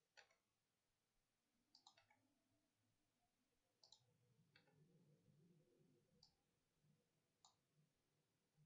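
Near silence with about six faint computer mouse clicks, spaced a second or two apart.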